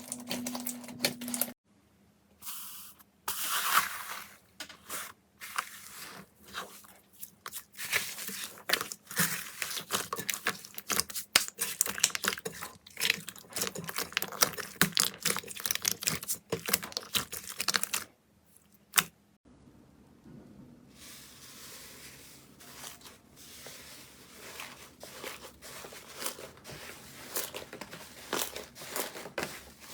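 Slime being squeezed and pressed by hand, giving dense runs of crackles and pops. The sound changes abruptly about a second and a half in and again about two thirds of the way through, after which the crackling is fainter.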